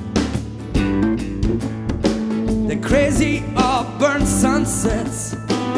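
Live band playing a song: a man singing over strummed acoustic guitar, electric guitar and a drum kit keeping a steady beat, his voice wavering in vibrato midway through.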